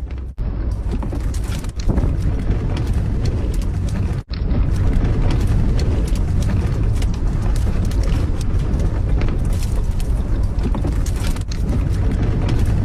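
Strong gale buffeting the microphone: a loud, steady low rumble with crackle, cut off for an instant twice, about a third of a second in and about four seconds in.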